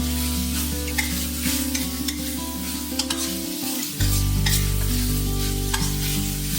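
Shredded carrot, tofu skin and cabbage sizzling over high heat while a spatula stir-fries them, with scattered sharp scrapes and taps of the spatula against the pan.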